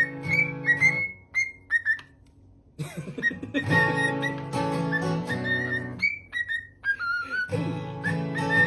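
A parrot whistling a tune in short pitch-bending notes over guitar music; both break off for about a second and a half shortly after the start, then resume.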